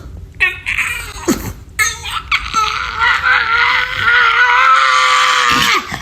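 Short cries, then one long, high, wavering cry held for about three seconds that stops suddenly near the end.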